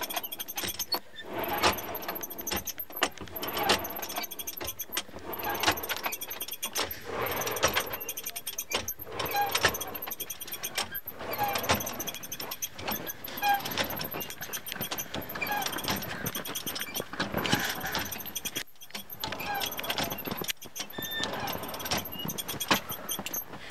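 Coal forge being blown while steel heats in it: the whir and rattle of its small lever-worked blower fan, with many small metallic clinks and crackles of coal and iron throughout.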